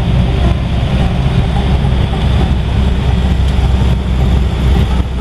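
1955 Ford station wagon cruising, heard from inside the cabin: the steady drone of its 292 Y-block V8 and exhaust, mixed with tire and road noise. The exhaust leak has been repaired.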